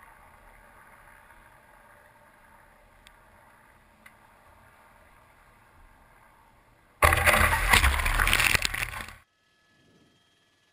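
Faint steady hiss from the onboard camera of the SpaceX Dragon capsule as it descends under its parachutes. About seven seconds in, a sudden loud splash and rush of water as the capsule hits the sea, lasting about two seconds and cutting off sharply.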